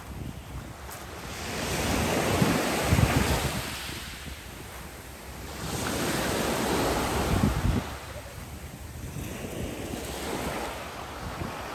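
Small waves breaking and washing up a pebble beach, the surf rising twice a few seconds apart, then easing off, with wind rumbling on the microphone.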